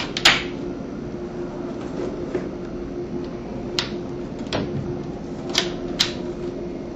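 A handful of sharp clicks and light knocks as a louvered plantation shutter panel is handled and seated on its hinge pins in the frame, over a steady low hum.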